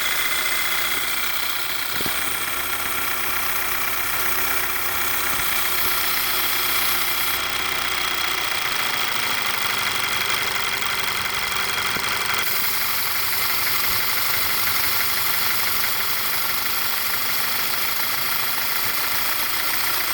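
Audi A4 B8 engine idling steadily, with a steady high-pitched whine and hiss over the idle, which the owner takes for a possible vacuum leak.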